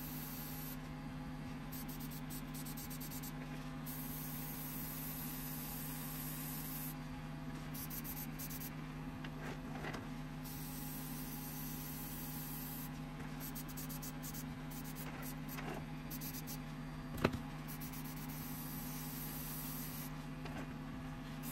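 Airbrush spraying in on-and-off passes, a faint high hiss that starts and stops every few seconds, over a steady low hum. One sharp tap late on.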